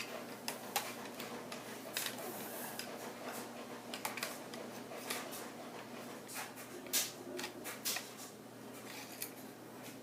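Scattered clicks and knocks of an airsoft G36's parts being handled and fitted back together, the loudest about seven seconds in.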